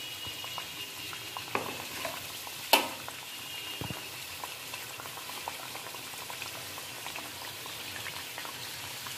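Karanjis deep-frying in refined oil in a wide pan: a steady sizzle and bubbling of hot oil. A few sharp clicks break through it, the loudest a little under three seconds in.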